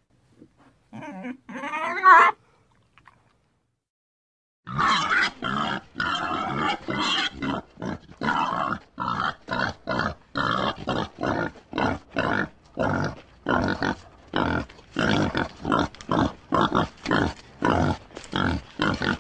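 Pig vocalising: a short, pitched squealing call in the first two seconds, then after a brief silence a long run of short grunts at about two a second.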